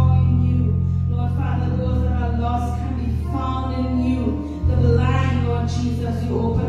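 A woman singing a worship song into a microphone over an instrumental accompaniment of sustained bass chords, which change about two seconds in and again just before five seconds in.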